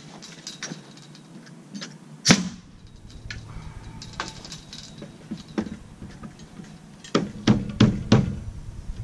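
Knocks and taps on wooden fence boards as they are handled and fitted. One sharp, loud strike comes about two seconds in, and a quick run of four heavier knocks near the end.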